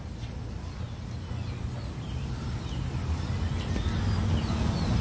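Outdoor ambience: a low rumble of distant traffic that slowly grows louder, with faint bird chirps over it.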